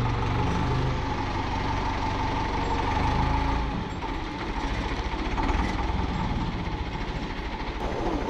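Forklift engine running under load, dropping about four seconds in to a steady, rapidly pulsing idle, with a faint steady whine over it.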